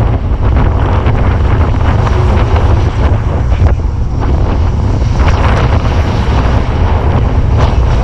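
Wind buffeting the camera's microphone: a loud, steady low rumble with a rushing hiss over it.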